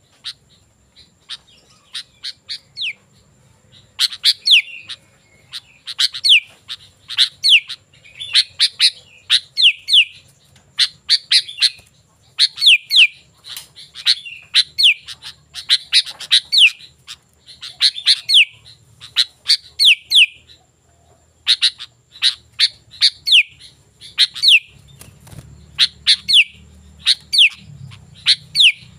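Sooty-headed bulbul (kutilang) singing, repeating short chattering phrases that each end in a quick falling whistle, about one phrase a second; the first few seconds hold only scattered chirps.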